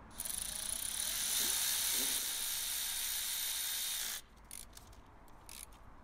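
Milwaukee cordless electric ratchet running steadily for about four seconds as it winds a new spark plug into the cylinder head, then stopping suddenly. A few faint clicks follow.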